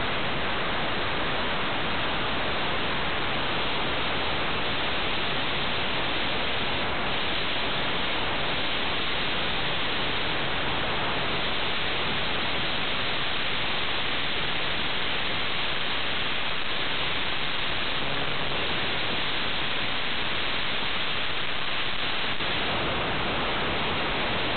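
Steady, even static hiss that does not change, even when the picture settles on the carpet.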